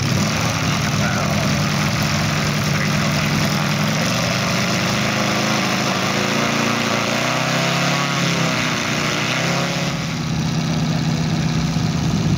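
Moki 250cc five-cylinder radial four-stroke petrol engine of a quarter-scale model P-47 idling steadily on the ground, its pitch wavering for a few seconds in the second half.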